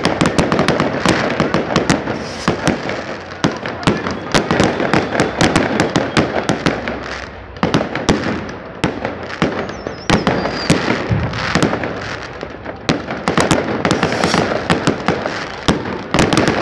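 Aerial fireworks shells bursting overhead in quick succession: a dense, loud run of bangs and crackles, several a second, with hardly a pause.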